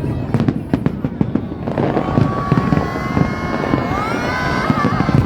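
Fireworks bursting overhead in a rapid string of bangs and crackles. From about two seconds in, a long held whistle-like tone runs over the bangs and bends in pitch near the end.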